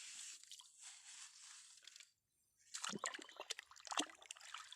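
Faint wet sand and dirt being scraped and cleared out: a soft hiss, a short gap about two seconds in, then a run of irregular squishy, crunchy scrapes.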